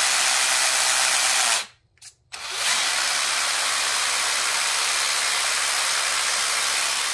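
The 550 brushed motor and geared drivetrain of an RGT EX86190 LC76 1/10 RC crawler spin the wheels freely with the truck upside down, making a steady high whirr. The whirr cuts out briefly about two seconds in as the throttle is let off, then runs again.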